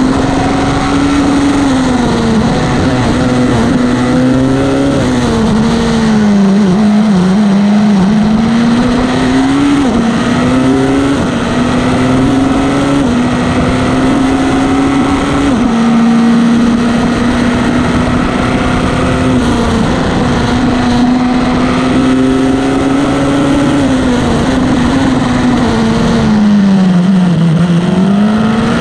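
Single-seater formula race car's engine heard from the open cockpit, running hard at high revs, its pitch holding high and steady for long stretches and dipping and recovering a few times as the car slows for bends.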